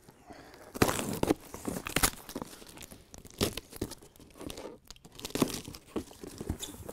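Packing tape being peeled and ripped off a cardboard box, with the cardboard flaps rustling: a string of short tearing rasps, the loudest about a second in.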